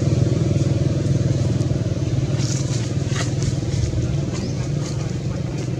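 A motor vehicle engine running steadily with a low pulsing rumble, easing off slightly toward the end, with a few faint ticks in the middle.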